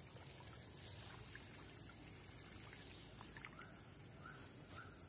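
Quiet pond-side ambience: a faint steady high hiss with a few soft clicks, and three faint short chirps near the end.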